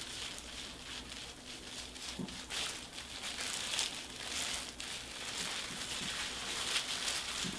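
Hands rubbing and squeezing hair dye into locs close to the microphone: soft, irregular rustling and crinkling.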